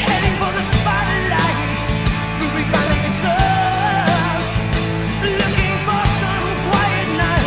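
Rock music with a singing voice over guitar and drums.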